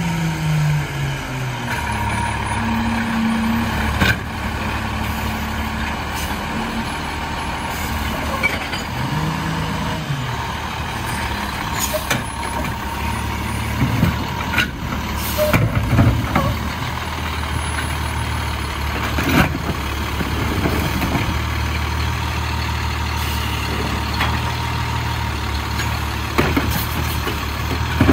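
Diesel Autocar WXLL garbage truck with a McNeilus Autoreach side-loader running steadily. Its engine pitch falls right at the start and shifts again about nine seconds in, and several sharp knocks come through the engine sound.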